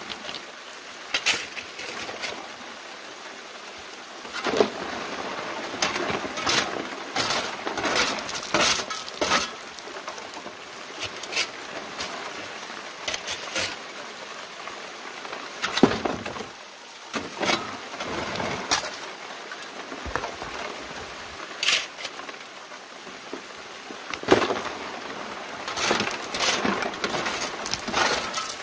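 Shovelfuls of gravel and stones dumped onto a steel screen over a sluice box, clattering and rattling irregularly on the metal, over water running steadily down the sluice.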